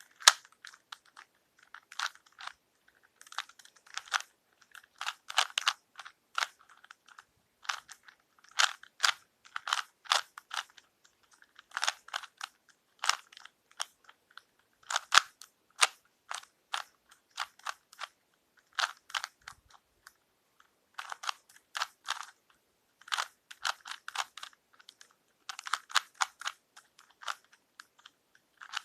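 Plastic Rubik's Cube being turned by hand: quick clicking and clacking as the layers rotate, in irregular bursts of several turns with short pauses between.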